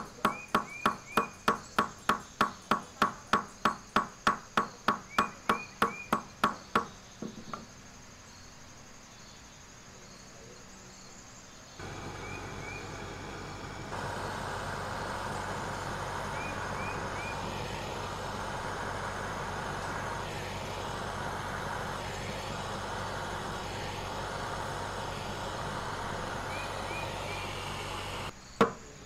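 A small hammer striking a silver strip on a polished steel stake, fast taps of about four a second that ring a little, stopping about seven seconds in. After a short lull, a handheld gas torch runs with a steady hiss, louder from about fourteen seconds in, as it heats the silver to a red glow to anneal it. The flame cuts off near the end, and the hammering starts again.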